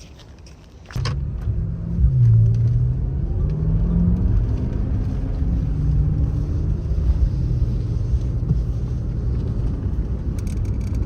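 BMW M5 F10's twin-turbo V8 running. It comes in suddenly about a second in, rises in pitch as it revs over the next couple of seconds, then runs steadily.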